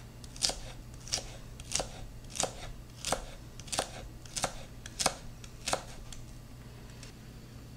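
Kitchen knife dicing celery on a wooden cutting board: about nine even chopping strikes, roughly one every two-thirds of a second, stopping about six seconds in.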